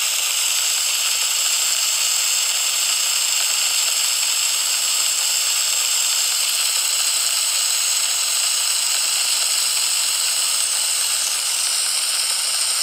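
Mini pizzas sizzling in a hot metal pan: a loud, steady, high hiss.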